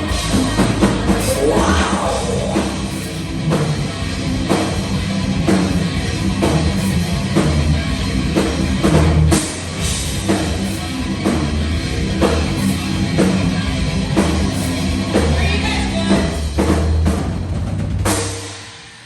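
Heavy metal band playing live at full volume, with the drum kit's kick and cymbal hits over a heavy low end. It stops abruptly near the end and leaves a short ring.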